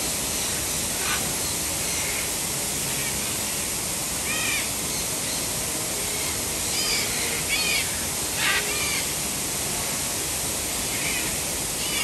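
Aviary birds giving a few harsh, rasping squawks, mostly in the middle stretch, over the steady rush of a waterfall.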